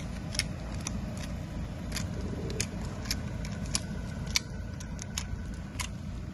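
Irregular sharp metallic clicks and clinks as a semi-automatic pistol is handled in gloved hands close to the microphone, over a steady low rumble.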